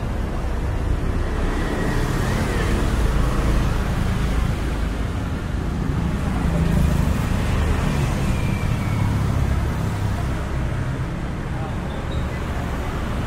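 Street traffic noise from motor scooters and cars riding past, a continuous low engine and tyre noise that swells and eases slightly as vehicles come and go.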